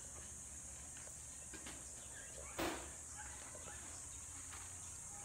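Insects, crickets or cicadas, chirring in a steady high-pitched drone. A single short knock sounds about two and a half seconds in.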